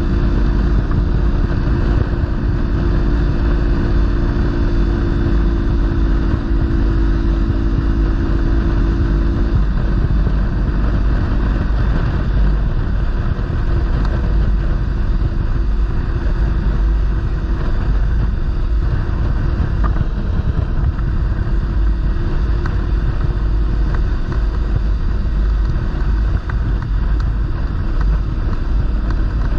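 Kawasaki Versys-X 300's parallel-twin engine running steadily while riding, under a constant rush of wind on the camera's microphone. The engine's steady note fades about ten seconds in, leaving mostly wind and road rumble.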